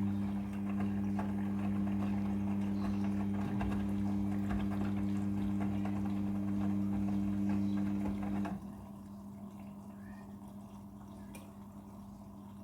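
Front-loading washing machine with water rushing through it over a steady electric hum, which cuts off sharply about eight and a half seconds in, leaving only a faint hum.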